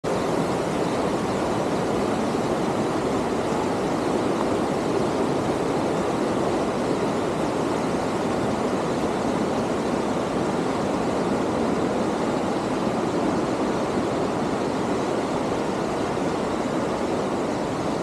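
Steady, unbroken rush of a mountain stream cascading over rocks.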